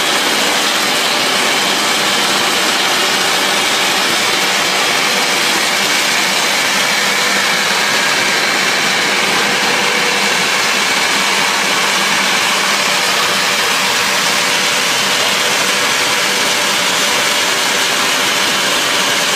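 Dry peanut red-skin peeling machine running: a steady whirring hiss from its motor, induced-draft fan and skin-rubbing rollers, with a few held tones and no change in level.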